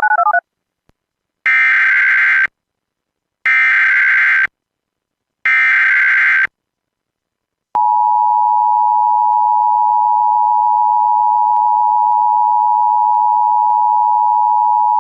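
Emergency Alert System signalling. A brief warble at the very start is followed by three one-second bursts of SAME header data about two seconds apart. About eight seconds in, the steady two-tone EAS attention signal begins, announcing a new alert.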